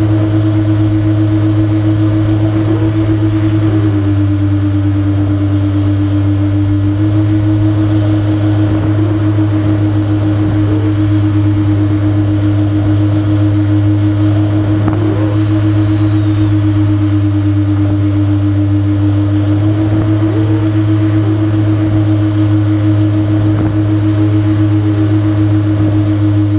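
Twin electric motors and propellers of a Multiplex TwinStar model plane droning steadily, heard from on board, as one steady hum. Its pitch steps down slightly about four seconds in and back up about three seconds later.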